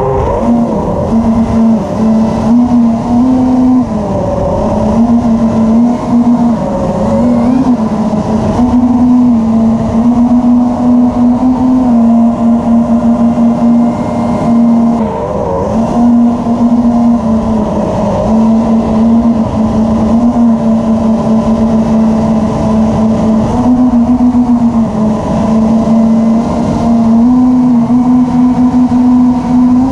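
Model airplane's motor and propeller, heard from a camera on board, running with a steady drone whose pitch steps up and down every few seconds as the throttle changes, over a rush of wind.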